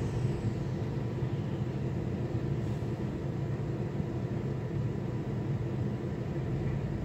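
Steady low engine rumble heard inside a pickup truck's cab as it rides a car ferry across the river.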